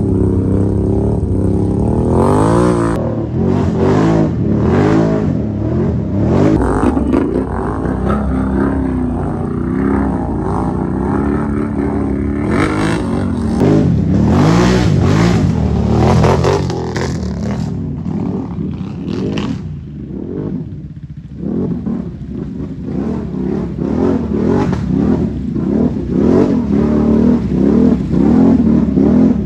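Can-Am Renegade ATV's V-twin engine revving up and down over and over as the quad is driven through deep water, with the tyres churning and splashing.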